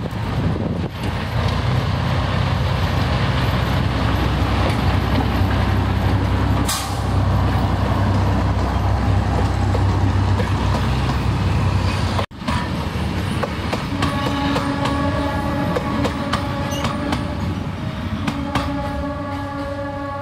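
A narrow-gauge diesel locomotive and its passenger carriages roll past with a deep, steady rumble and rattle of wheels on track. After a sudden cut about twelve seconds in, a train horn sounds a steady tone for about three seconds, and again near the end.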